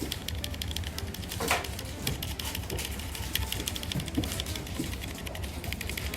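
Rapid typing on a Keyboardio Atreus mechanical keyboard: a fast, continuous patter of key clicks over a low steady hum.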